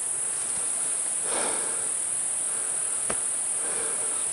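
Steady high-pitched insect chorus, like crickets, in the woods. Soft rustling steps along the forest trail about a second in and again near the end, with one sharp snap, like a twig breaking underfoot, about three seconds in.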